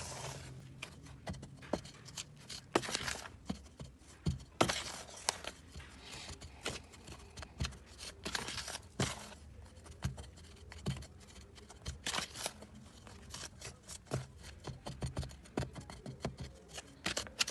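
A utensil scraping and knocking against a mixing bowl in irregular strokes as dry flour, sugar and baking powder are stirred together.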